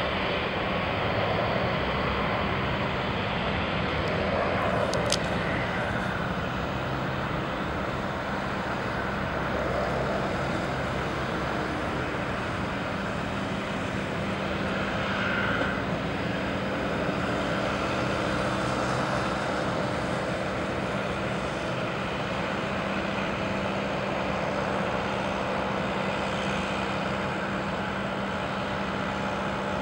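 Steady drone of a Boeing 777F freighter and its pushback tug during pushback, with a low steady hum under it. A brief sharp click about five seconds in.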